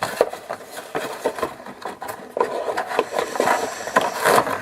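Rustling, scraping and scattered light knocks of paperwork and small accessories being handled in a revolver's box.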